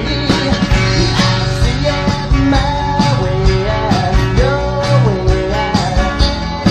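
A rock band's studio recording: electric guitar over bass and drums, with a melody line sliding up and down in pitch and a steady beat.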